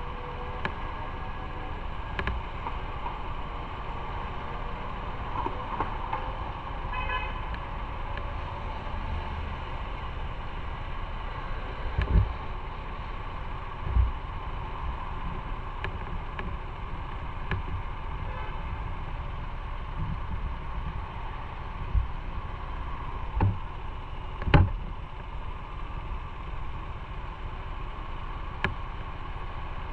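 Idling city traffic at a stop, with a motorcycle idling among the cars. A car horn toots briefly about seven seconds in. Several short thumps come later, the loudest about two-thirds of the way through.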